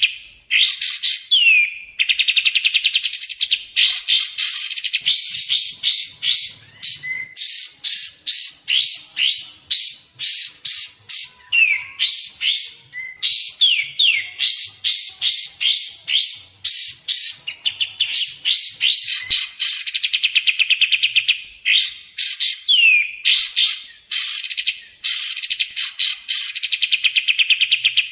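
Kapas tembak songbird calling almost without pause: high, fast rattling trills mixed with quick down-slurred whistled notes, repeated in runs with short breaks. This is a bird-lure recording of the species' call.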